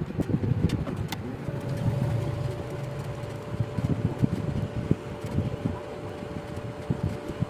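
Hot air rework station blowing a steady stream of air, likely while the ringer IC is desoldered from the phone's motherboard. A steady hum joins about a second and a half in, and there are a couple of light clicks about a second in.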